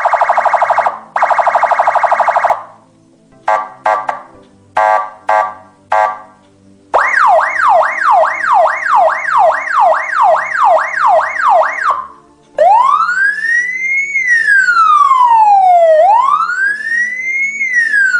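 Electronic police siren running through its modes: two long buzzy horn blasts, then a few short blips, then a fast yelp about twice a second, then a slow wail rising and falling over a few seconds.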